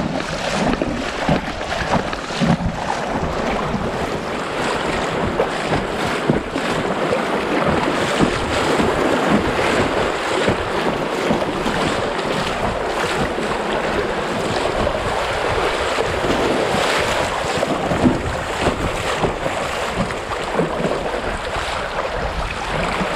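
Rushing river water as an inflatable kayak runs a channel through a small class 1–2 rapid, with wind on the microphone.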